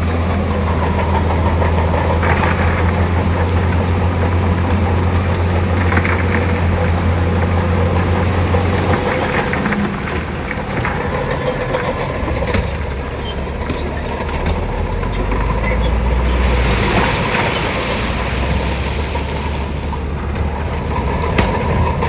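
Heavy diesel earthmoving machinery running steadily. Its engine note shifts lower about nine seconds in, and a few metallic clanks follow a few seconds later.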